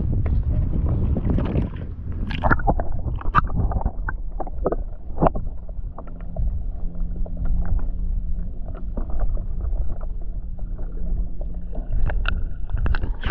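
Wind buffeting the microphone over water splashing and slapping irregularly against a kayak on choppy water.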